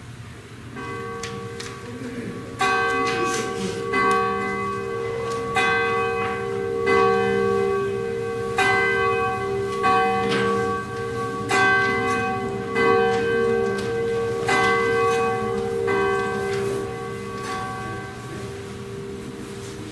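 Church bell ringing, struck about once every second and a half, its hum ringing on between strokes; the strokes grow weaker near the end. It follows the organ prelude as the call to worship.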